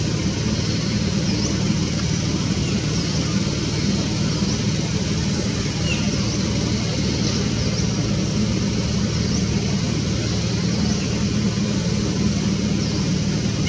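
Steady low mechanical rumble, in the manner of a nearby engine or road traffic, with a few faint short high chirps here and there.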